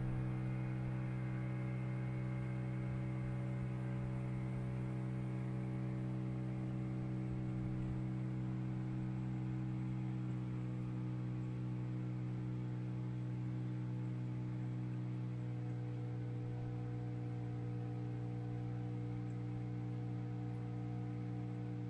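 A boat's motor running at a steady speed: a low, even hum whose pitch does not change.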